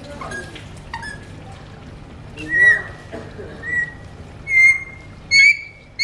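Alexandrine parakeets giving short, loud whistled calls, one after another. Two faint ones come in the first second and four louder ones follow in the second half, each about half a second long.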